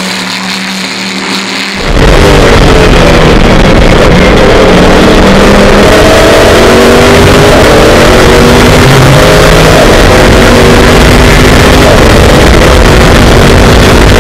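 Race-car V8 heard onboard at full throttle, very loud over a rush of wind and road noise, its note climbing slowly as the car accelerates. About two seconds in it cuts in abruptly from a quieter engine sound heard from trackside.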